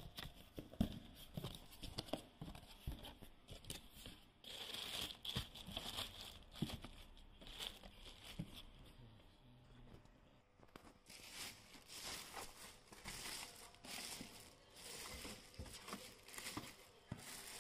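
Clear plastic packing bag around a new printer crinkling and rustling as it is handled and pulled inside its cardboard box. The rustles are irregular, with a few sharp clicks and knocks, and ease off for a couple of seconds midway before growing denser again.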